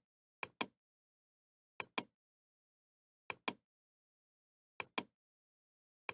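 Computer mouse clicks, each a quick double click of button press and release, repeating about every second and a half with silence between.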